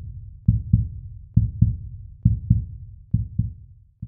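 Heartbeat sound effect: low double thumps, a little under one pair a second, with a fainter last pair near the end.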